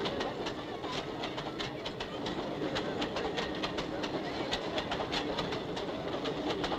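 Freight train of boxcars rolling past, its wheels clattering over the rail joints in a run of sharp, rapid clicks over a steady rumble.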